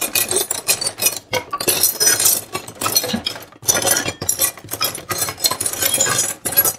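Plastic toy dishes, cups and toy food from a children's kitchen playset clattering and clinking against each other and the table as they are handled, in quick irregular knocks.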